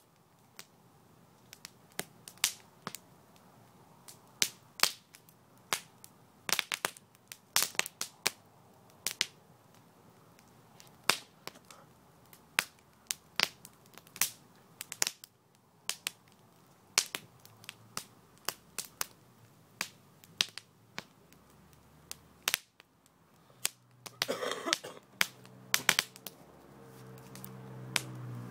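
Popcorn kernels popping in a campfire: loud, sharp, irregular pops, a few a second, over the fire's faint crackle. A low pitched sound builds near the end.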